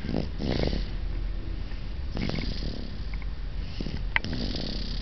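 A sleeping baby snoring, three snores about two seconds apart, with a brief click just after four seconds in.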